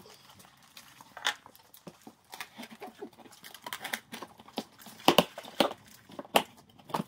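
Cardboard boxes and plastic wrap handled while unpacking: rustling and scraping of cardboard with scattered sharp knocks and taps, the loudest a little past halfway.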